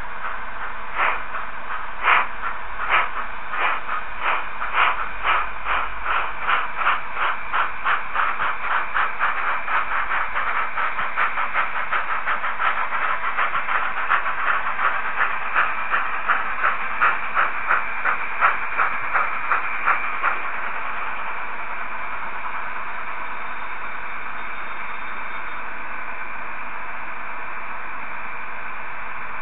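Model narrow-gauge steam locomotive's steam-chuff sound as it pulls away: the chuffs quicken from about one a second to several a second, then cut off suddenly about twenty seconds in, leaving a steady hiss.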